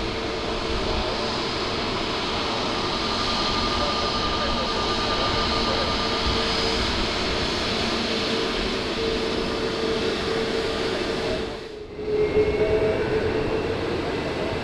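Jet airliner landing: steady engine noise with a held whine. About twelve seconds in the sound drops out briefly, then comes back slightly louder.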